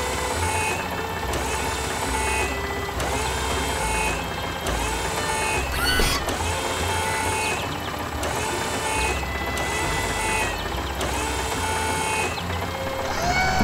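Cartoon machine sound effects, a repetitive mechanical whirring for a tractor's loader arm, over light background music. There is a brief sweeping sound about six seconds in.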